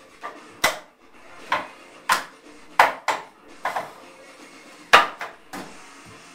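Wing Chun wooden dummy (mook jong) struck by hands and forearms on its wooden arms: a string of sharp wooden clacks at an irregular pace, some coming in quick pairs.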